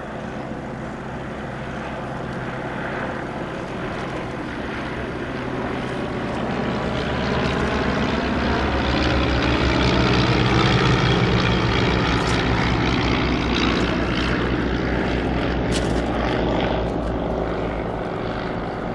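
Vintage piston-engined propeller aircraft flying past. The engine grows louder to a peak about halfway through, then fades as the aircraft moves away, its pitch bending down as it passes.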